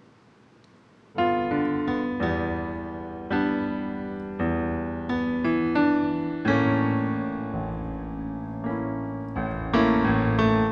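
Piano music that begins about a second in: a slow run of struck chords, each ringing and fading before the next.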